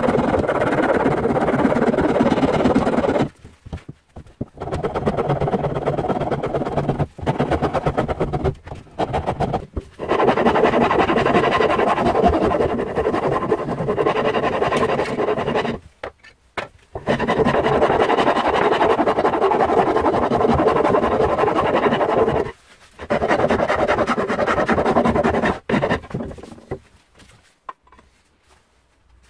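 Hand file rasping over an oak handle blank, shaping the wood in long runs of quick back-and-forth strokes. It pauses briefly several times and stops near the end.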